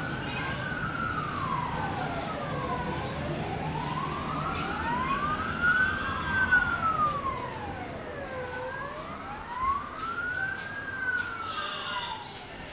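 Emergency vehicle siren wailing in a slow rise and fall, about one cycle every four seconds, with a second wail overlapping it out of step.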